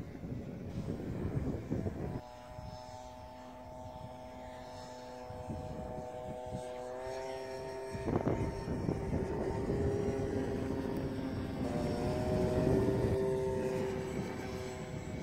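Electric motor and propeller of a GeeBee R3 radio-controlled model plane on a 4S battery, flying past with a steady whine that comes in about two seconds in and shifts a little in pitch. Wind buffets the microphone at the start and again about halfway through.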